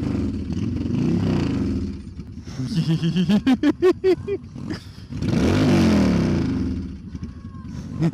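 Cruiser motorcycle's loud exhaust being rev-bombed: a couple of revs, then a quick string of short throttle blips a little after three seconds, then one long rev that rises and falls about five seconds in.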